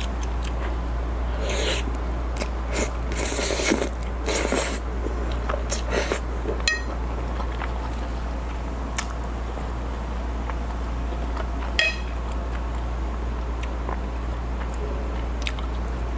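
Close-miked eating sounds: noodles of creamy pasta slurped in several short bursts in the first few seconds, then chewing, with a couple of sharp clicks of utensils.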